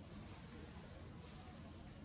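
Faint steady background noise with a low rumble and no distinct event.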